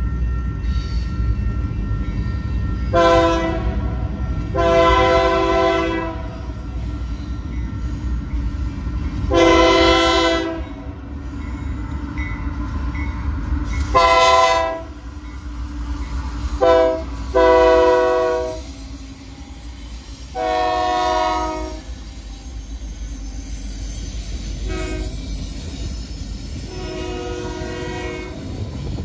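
Diesel locomotive air horn sounding about nine blasts for a grade crossing, most a second or more long and two of them short, over the steady low rumble of the approaching five-unit diesel locomotive lash-up.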